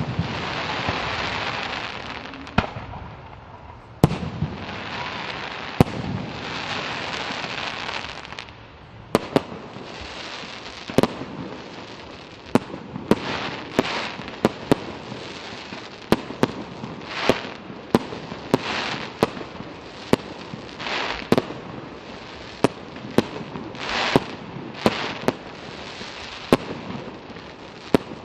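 Fireworks display: sharp bangs of shells bursting, with long stretches of steady rushing noise between them for the first eight seconds or so. After that comes a run of bangs about once a second, each with a short noisy trail.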